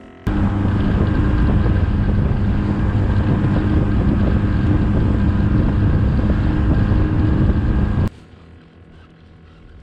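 Inflatable boat's outboard motor running at speed with water rushing past the hull and wind buffeting the microphone. The loud, steady run starts suddenly just after the start and cuts off abruptly near the end.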